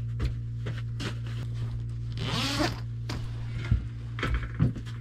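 Zipper on a boat's canvas enclosure panel being undone, with one long rasping pull about two seconds in and light clicks and knocks around it, over a steady low hum.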